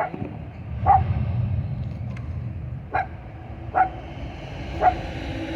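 A dog barking, about five short single barks at uneven gaps of roughly a second, over a steady low rumble.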